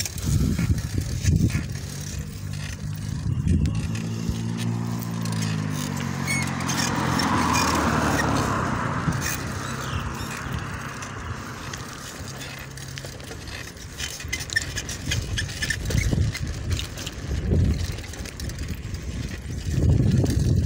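A motor vehicle's engine hum that drops in pitch about four seconds in, with a swell of road noise, then fades away by about thirteen seconds. Wind buffets the microphone of the moving bicycle in gusts, near the start and again near the end.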